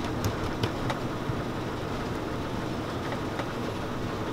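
Steady mechanical hum of running machinery, with a few light clicks in the first second as chocolate-dipped cherries are worked by hand and set down on the board.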